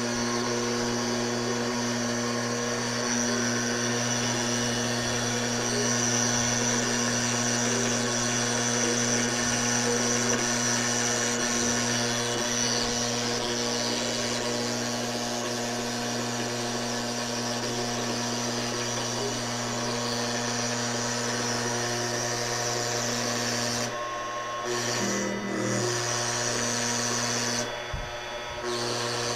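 TorqueCNC 9060 CNC router spindle running with a small router bit cutting a 3 mm-deep dragon profile into sheet material. It makes a steady whine over constant cutting noise, with a couple of brief dips near the end.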